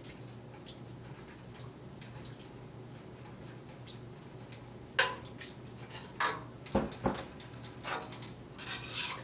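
Metal spoon stirring a watery chili and ground-beef sauce in a stainless steel pot, with faint scraping at first, then clinking sharply against the pot several times in the last few seconds. A faint steady low hum runs underneath.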